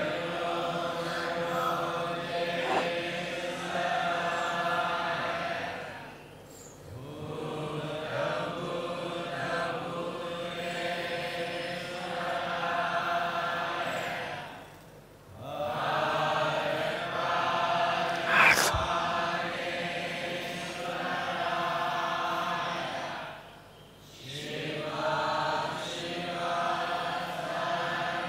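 Slow devotional chanting, voices holding each long phrase for about eight seconds, with a short breath-pause between phrases. A single sharp click cuts in about two-thirds of the way through.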